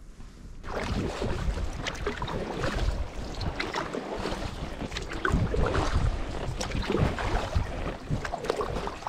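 Water splashing and lapping around a kayak being paddled, with wind rumbling on the microphone; it starts abruptly under a second in.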